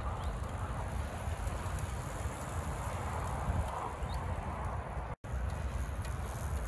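Wind buffeting the microphone, with the tyre hiss of recumbent trikes and handcycles on tarmac swelling and fading as riders pass.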